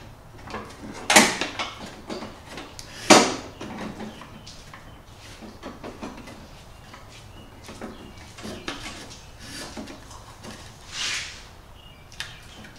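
A hard plastic dash panel being set down and worked into place on a riding mower's metal steering pedestal: two sharp knocks about one and three seconds in, then lighter taps and rubbing, and a brief scrape near the end.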